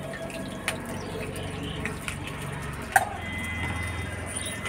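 Pakoras frying in oil in a metal kadai, a faint steady sizzle under a low hum. There are a few light clicks and one sharp knock of a utensil about three seconds in.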